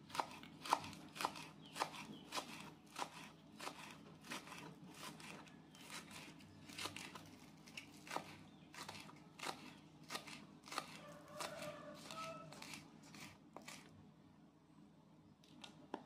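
Kitchen knife chopping green onion on a wooden cutting board: a steady run of sharp knocks, about two to three a second, that stops near the end.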